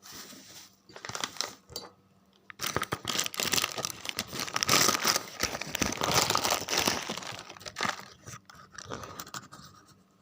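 A bag crinkling and rustling as it is handled and opened so that powdered propolis can be spooned out of it. There are short bits of crackling in the first two seconds, then dense irregular crackling for about five seconds that thins out near the end.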